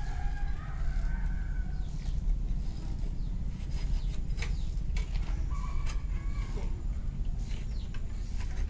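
Chickens clucking, with a rooster crowing in the first second or so, over a steady low rumble and a few sharp knocks.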